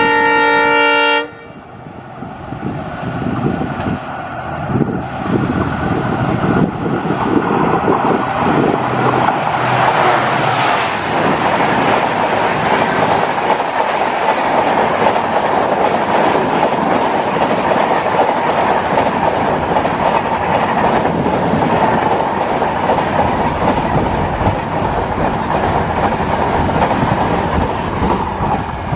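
Indian Railways diesel locomotive sounds its horn, which cuts off about a second in. The locomotive then approaches and passes at high speed, followed by a long train of LHB passenger coaches rushing past with a steady, loud rumble of wheels on rails.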